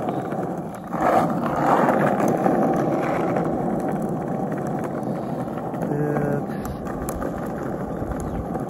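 Skateboard wheels rolling on rough asphalt: a steady low rumble with a few faint clicks.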